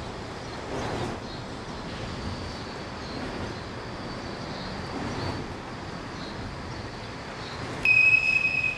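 A freight train's steady running rumble, then about a second-long blast of an electric locomotive's whistle near the end, a single high steady tone and the loudest sound here.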